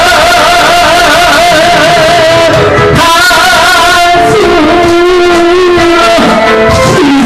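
Amplified singing through a microphone and PA over a loud backing track, long held notes with a heavy wavering vibrato. A brief break comes about three seconds in, then a lower phrase.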